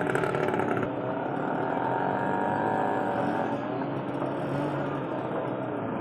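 Dense road traffic at close range: engines of auto-rickshaws, cars and motorcycles running and moving past in a jam. A rapid engine pulse is loudest in the first second, then the mix settles into a steadier drone.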